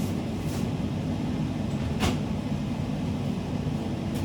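A steady low mechanical hum from a kitchen appliance, with a single sharp click about two seconds in.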